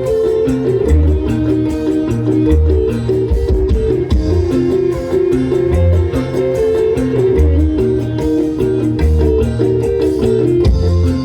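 Live dangdut band playing an instrumental passage through a loud PA system: a sustained melody line over a bass that pulses in a regular beat.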